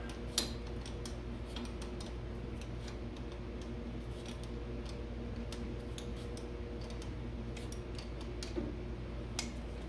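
Scattered light metallic clicks of a wrench being worked on a carburetor mounting nut, with one sharper click about half a second in, over a steady low hum.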